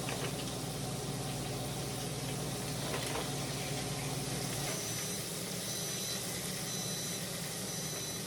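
Floured chicken wings frying in hot oil: a steady sizzle. About five seconds in, an electronic appliance beep sounds four times, about once a second.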